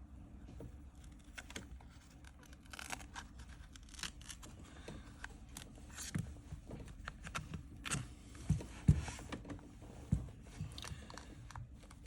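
Small repair tools clicking, tapping and scraping against an iPhone XR as its screen is worked open, with brief tearing sounds of the screen adhesive. The louder taps come about eight to nine seconds in.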